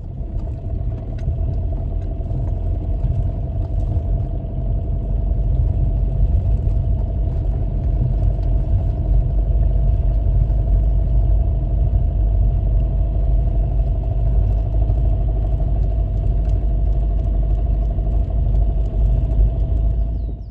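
A vehicle engine running steadily, with a heavy low rumble and a constant hum.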